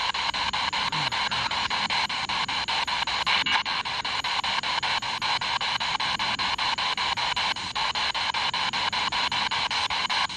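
Spirit box sweeping through radio frequencies: a steady rush of radio static chopped by rapid, even clicks several times a second, with no clear word coming through.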